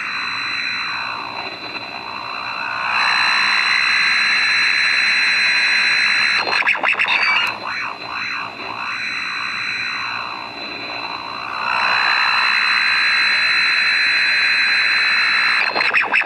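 Radio-frequency interference from a homemade MOSFET pulse circuit driven by an NE555 timer, heard through a Grundig G8 AM radio tuned to a station: a buzzing electronic hash with a steady high whistle, sweeping up and down in swirls and twice settling into a louder, steadier roar for a few seconds. The noise shifts as the 555 timer flips between operating modes and the charge-dump capacitor charges and discharges through a neon bulb.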